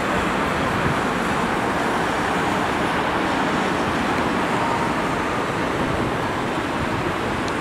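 Jet engines of a Hawaiian Airlines twin-engine widebody airliner on final approach to land: a steady, even rushing noise.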